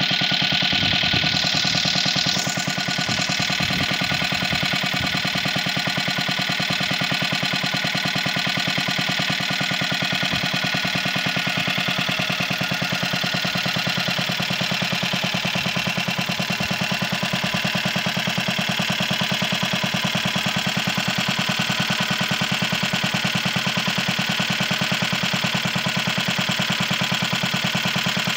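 Villiers AV3 (Mk 7) single-cylinder engine running steadily at an even, fast beat while driving a Beresford B30 water pump. Water from the pump's outlet hose splashes into a bucket with a steady hiss.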